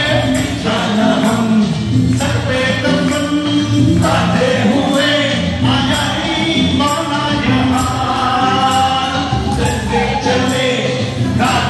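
Live dance music: singing over a steady, quick percussion beat of about three strokes a second.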